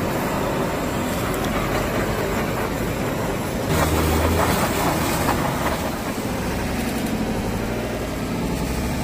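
Handheld gas torch hissing steadily over a hot griddle, with food sizzling. About four seconds in, a flare of flame makes a louder, deeper whoosh for a couple of seconds, with a few sharp metal clicks from a spatula on the griddle.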